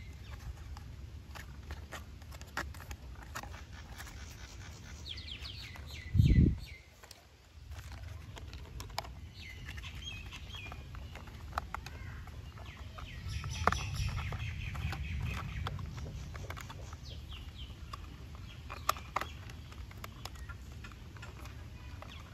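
Small clicks and scrapes of hard plastic toy parts being handled and pressed together, as a toy bus body is fitted onto its wheeled chassis. Birds call in the background, and a single dull low thump about six seconds in is the loudest sound.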